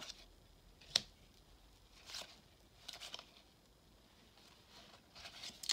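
Baseball cards sliding and flicking against each other as they are passed one by one from hand to hand: faint papery swishes about once a second, with one sharper click about a second in.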